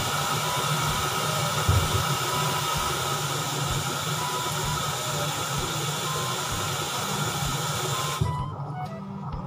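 A steady loud hiss that cuts off suddenly near the end, over faint background music with a few light notes.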